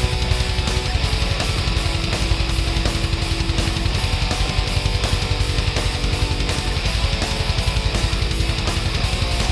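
Background rock music with distorted electric guitar and a fast, driving beat.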